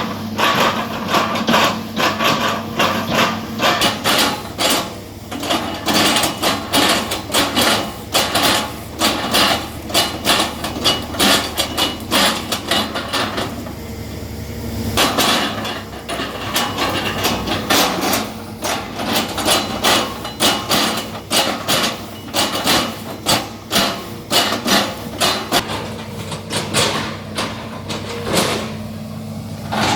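Excavator bucket chopping into an oil palm trunk, giving a rapid run of sharp knocks, several a second, over the excavator's steadily running diesel engine. The knocks pause briefly about halfway through.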